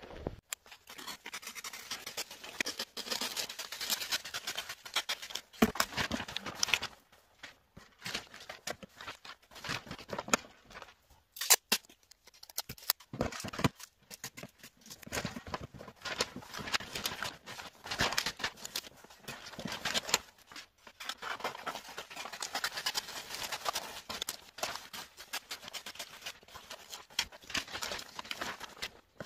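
Wrapping paper crinkling and rustling as it is handled and folded around a toy box, in an irregular stream of crackles with a few louder sharp crackles.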